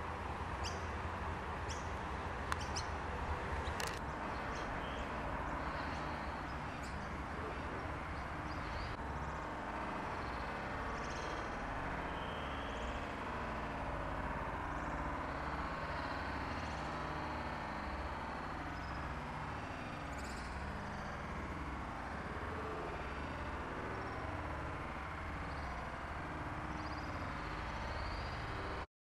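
Steady outdoor background noise with a low rumble and faint, scattered bird chirps. There are two sharp clicks about three to four seconds in, and the sound cuts off suddenly near the end.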